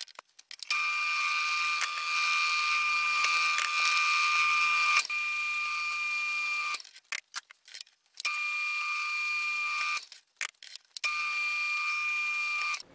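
Mill-drill spindle running with a steady whine as a center drill cuts into square steel tube, run slower than the bit could take. The whine stops and starts abruptly four times, with a few clicks in the short gaps between.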